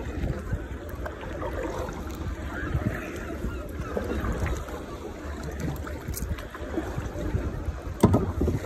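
Kayak paddle strokes splashing in choppy sea water, over a steady low rumble of wind on the microphone. A sharp knock near the end.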